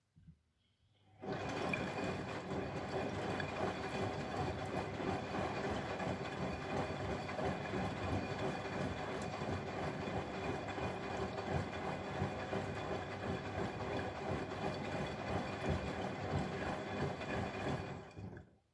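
Water running in a Bosch Maxx WFL 248Y washing machine, a steady rushing with a hum in it that starts about a second in and stops near the end.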